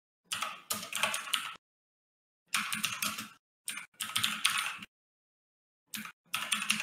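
Computer keyboard typing in about five short bursts of rapid key clicks, each burst cutting off abruptly into silence.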